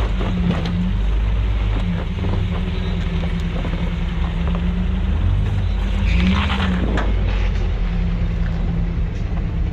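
Engine of an off-road truck running at low revs while crawling, its pitch rising briefly about six seconds in, with a short burst of rushing noise at the same moment.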